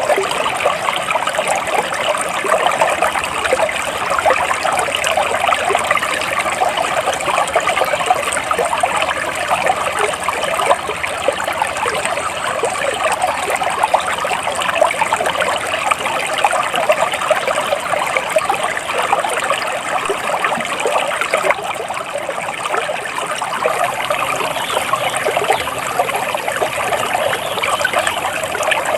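Flowing water trickling and splashing steadily, with no let-up or change.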